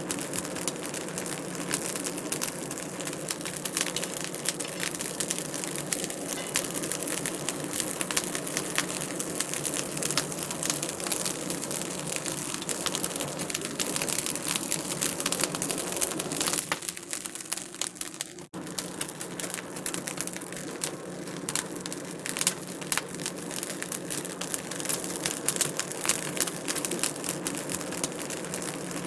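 Wood fire crackling steadily in a fireplace, with a constant run of small pops and snaps over a soft hiss. The sound thins out briefly about seventeen seconds in and drops out for an instant near eighteen and a half seconds before carrying on.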